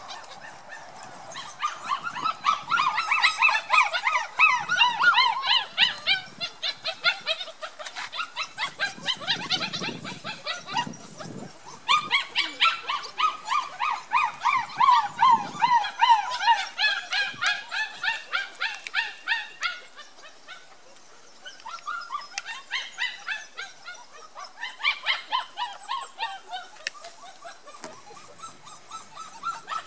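Young puppies whining and yipping: rapid runs of short, high-pitched yelps in long bouts, easing off for a while about two-thirds of the way through.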